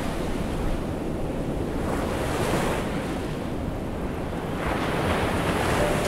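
Ocean surf washing on a beach, with wind on the microphone. The wash swells twice, about two seconds in and again near the end.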